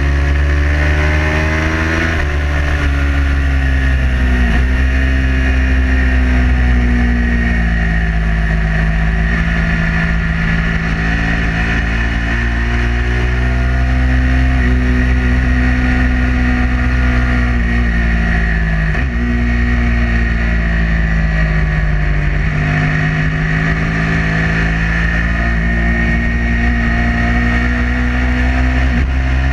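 A Ducati 999's L-twin engine heard from on board at track speed, its pitch climbing under throttle and dropping as the rider backs off for corners, with a few sudden drops. Wind noise rushes underneath.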